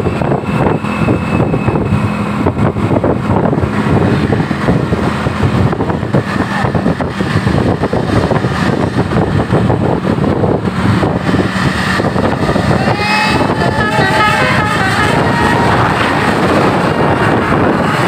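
A bus engine running close by amid road traffic noise. A wavering multi-note tone joins about thirteen seconds in and carries on to the end.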